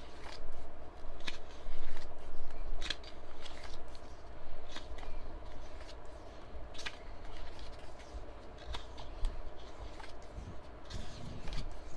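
Paper and album pages being handled and flipped: irregular short, crisp rustles and taps.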